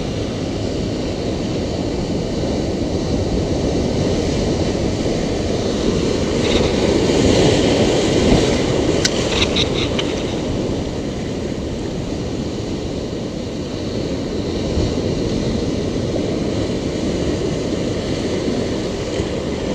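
Ocean surf washing and foaming among coastal rocks, a steady rushing that swells to its loudest about a third of the way through and then eases back.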